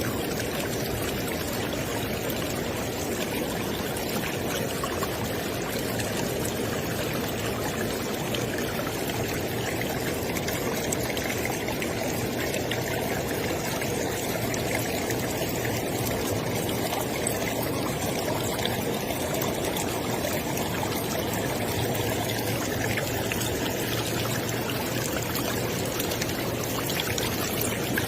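River water flowing, a steady rushing and splashing without letup.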